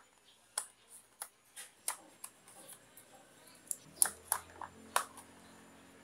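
Sharp plastic clicks and knocks from handling a DJI Mavic Mini drone, its folding arms being worked, about a dozen irregular clicks with the loudest two around two-thirds of the way in.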